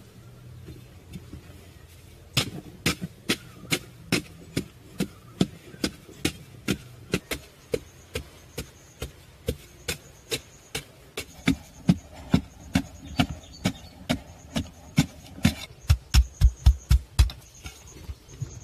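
A hand tool striking repeatedly in a steady rhythm, about two sharp blows a second, with a quicker run of dull thuds near the end.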